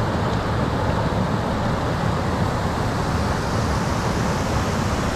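Steady rush of a trout stream's flowing water over a riffle, an even wash of noise with no let-up.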